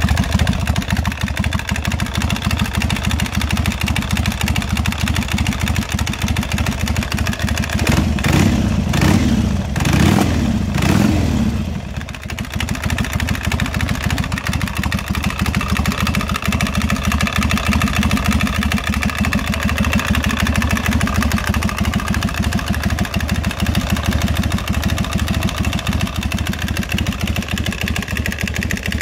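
Harley-Davidson 96-cubic-inch Twin Cam V-twin with a Samson Big Gun Shortcut exhaust, running at idle. About eight seconds in it is revved up briefly about three times, then drops back to a steady idle.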